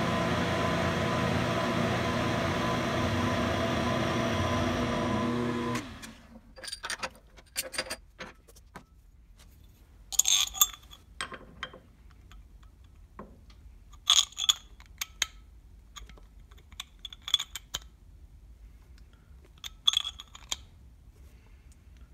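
Benchtop milling machine running steadily as its end mill cuts a flat on a bolt's square head, stopping abruptly about six seconds in. Then sharp metallic clicks and clinks as a wrench works the nut of a square collet block and the block is turned and reset in the vise.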